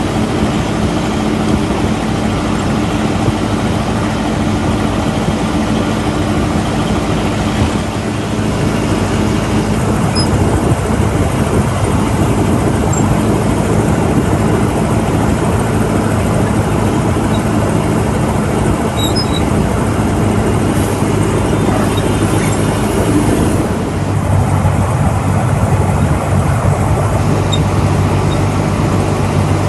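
A motor engine running steadily, its pitch shifting lower about three quarters of the way through.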